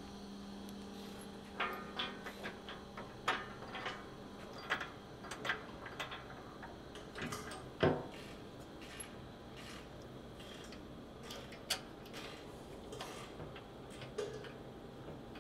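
Light, irregular metallic clicks and taps of bolts, nuts and tools being worked by hand as a skid plate's mounting bolts are snugged up to the cross member.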